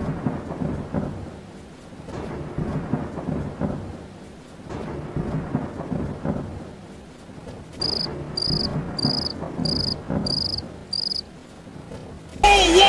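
Storm sound effect of rumbling thunder and rain. About eight seconds in, a cricket chirps in a short run, about two chirps a second: the comic 'crickets' of an awkward silence. Loud hip-hop music comes in just before the end.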